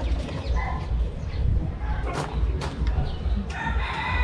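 A rooster crowing, one drawn-out call starting near the end. Before it come two sharp clicks about two seconds in, from screwdriver work on the scooter's plastic cowl.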